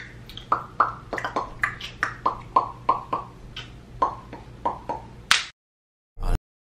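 A quick, uneven run of finger snaps, about three or four a second, ending in a louder snap just over five seconds in. The sound then cuts off, apart from one short low thump about a second later.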